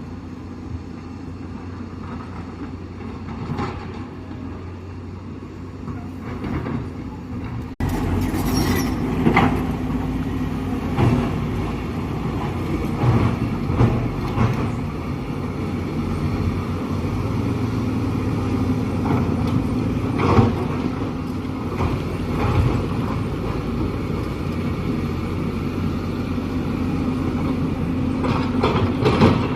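Diesel engines of an excavator and a loader running steadily, with scattered knocks and scrapes of earth-moving work. It gets abruptly louder about eight seconds in.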